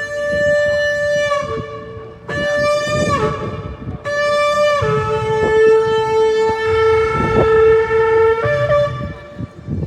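Shofar blown in several long, loud blasts, the pitch jumping between a lower and a higher note, the last blast held about four seconds.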